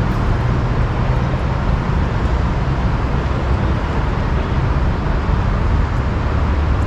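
Steady city traffic rumble: a continuous low noise of road vehicles with no distinct events.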